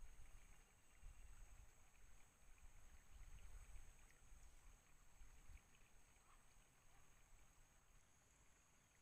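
Near silence: quiet outdoor ambience, with a low, uneven wind rumble on the microphone over the first five or so seconds that then fades.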